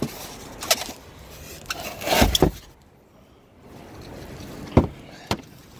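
Handling noises in a car trunk: a few short knocks and clunks as the trunk floor board is moved over the spare tire and tool tray, the loudest cluster a little after two seconds in.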